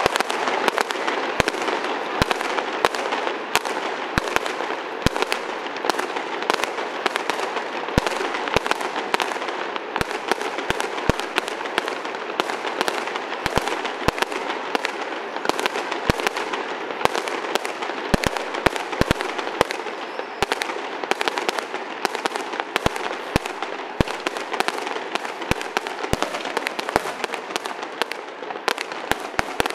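Fireworks going off in rapid succession: a dense run of sharp cracks and pops, several a second, over a steady rushing noise, with stronger, deeper bangs every second or so.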